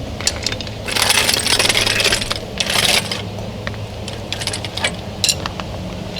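Metal tools and lug nuts clinking and rattling during work on a wheel, with sharp clicks throughout and two longer, louder rattling spells about a second in and near three seconds, over a steady low hum.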